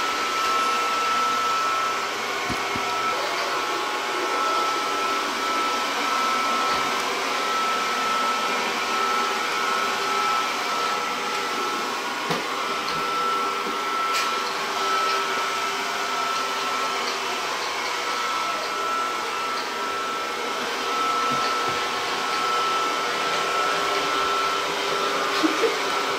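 Robot vacuum cleaner running, a steady whir with a constant high whine and an occasional faint tap.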